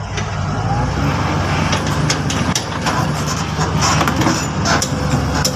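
Hitachi excavator's diesel engine running steadily, with repeated short metallic clanks and knocks while its thrown track is being worked back onto the sprocket.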